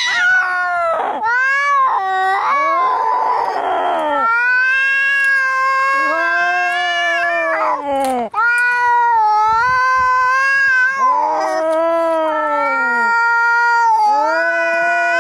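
Angry domestic cats caterwauling in a fight, long drawn-out yowls that rise and fall in pitch, one after another, with a harsh, rasping cry about three seconds in.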